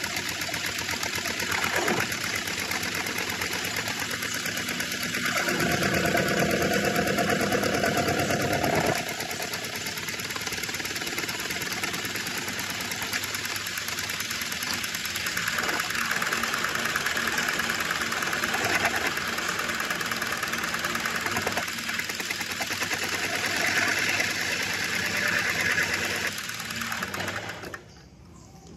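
Metal-turning lathe running, with a steady machine noise that swells louder for a few seconds at a time, then stops abruptly about a second before the end.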